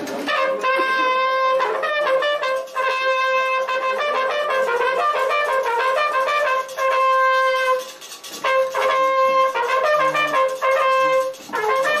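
A bugle (clarim) playing a loud ceremonial call in several phrases of held and repeated notes, separated by brief breaks, sounding the entrance of the orixás Ogum and Iemanjá in a Candomblé ceremony.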